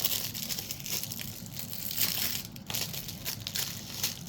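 The wrapping on two movie disc cases being torn open and crinkled by hand: a continuous crinkling with many short, sharp crackles.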